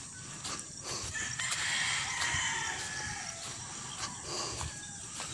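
A rooster crowing once, one long call of about two seconds starting a little over a second in.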